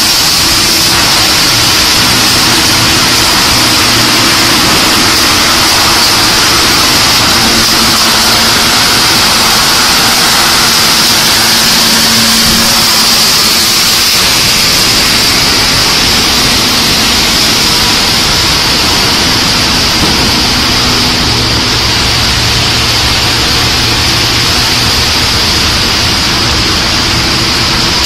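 Particle board sanding line machinery running: a loud, steady mix of high hiss and low hum with no pauses.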